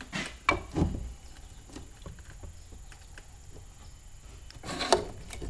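Metal tool clicking and knocking against the carburetor of a Predator 420cc engine as it is worked loose from its mounting studs. There are a few sharp knocks in the first second, faint ticks after them, and another cluster of knocks near the end.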